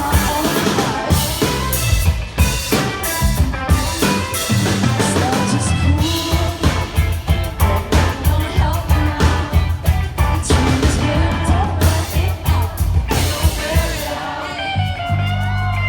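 A live rock band playing at full volume: drum kit, electric guitars, bass and a woman's lead vocal. Near the end the drums drop out, leaving a held chord and voice.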